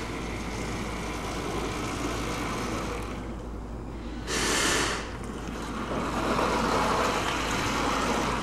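Six-wheeled electric LandShark robot driving on asphalt, with steady outdoor noise. A brief loud hiss comes about four seconds in, and a louder motor and tyre hum builds near the end as the robot comes close.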